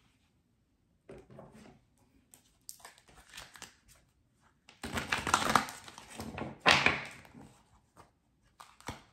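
A deck of oracle cards being shuffled and handled: irregular papery rustling with sharp clicks. It starts about a second in and is loudest past the middle.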